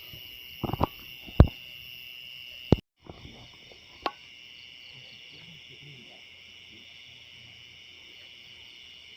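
Steady high-pitched chorus of night insects, with a few sharp clicks and knocks in the first few seconds. The chorus drops out briefly about three seconds in.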